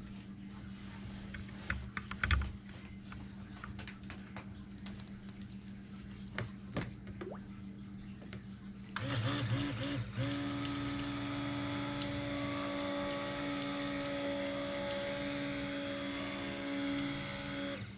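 Clicks and knocks of handling for several seconds, then, about nine seconds in, a stick blender starts suddenly and runs with a steady whine, stopping briefly about a second after it starts. It is blending cold process soap batter of oils and lye water toward emulsion.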